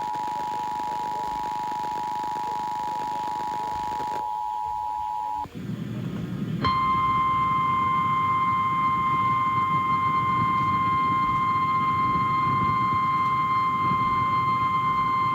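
Emergency Alert System two-tone attention signal, heard over FM radio: two steady tones sounding together for about five seconds, then cutting off. About a second later, a single steady, slightly distorted alert tone, typical of the NOAA Weather Radio warning alarm, sounds for about nine seconds over low receiver hiss, leading into a relayed flash flood warning.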